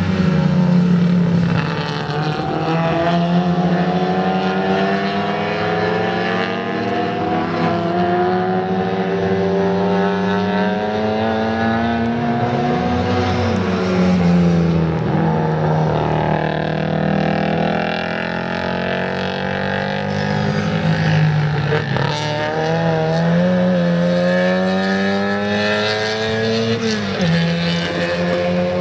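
Classic Mini race cars' A-series four-cylinder engines revving hard around a circuit, several engines overlapping. Each engine's pitch climbs steadily and then drops sharply at a gear change, again and again.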